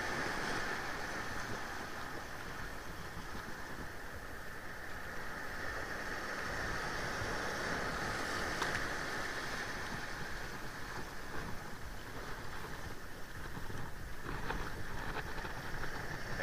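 Small waves washing and breaking over shoreline rocks, a steady rushing noise, with one faint click a little past halfway.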